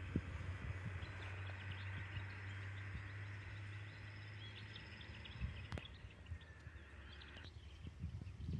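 Faint roadside forest ambience: many short bird and insect chirps over a low steady hum, with one sharp click about two-thirds of the way through. The chirping background drops away suddenly near the end.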